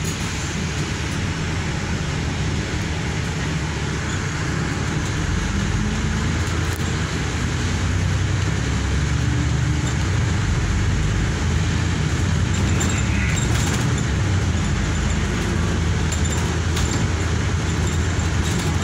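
Steady engine and road rumble of a bus heard from inside its upper deck, growing a little louder about halfway through.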